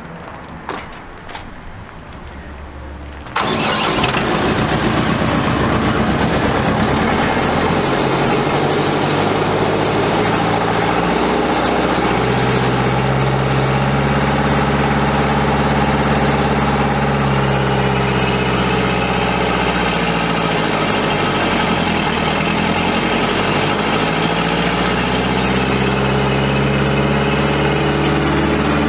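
Deutz four-cylinder diesel engine of a 2004 Woodchuck WC12A trailer wood chipper starting. A few seconds of quieter sound with a few clicks, then it comes in loudly about three seconds in and runs steadily. Its engine speed rises and falls again in the middle.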